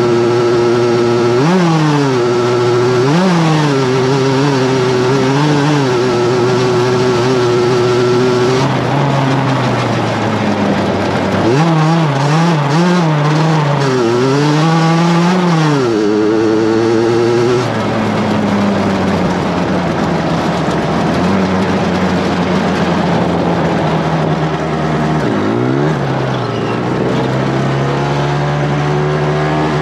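Racing lawnmower engine heard close up from onboard, running hard with the revs rising and falling repeatedly. About two-thirds of the way through, the engine drops to a steady low idle as the mower slows to a crawl, with one short blip of throttle near the end.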